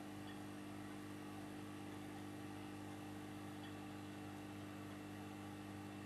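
Faint steady low hum over a soft hiss: indoor room tone.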